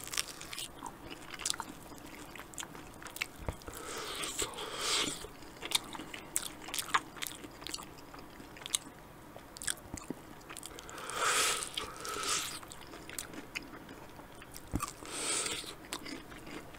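A person biting into and chewing a sauced chicken wing close to a microphone: small wet clicks and smacks throughout, with a few short louder swells of chewing noise.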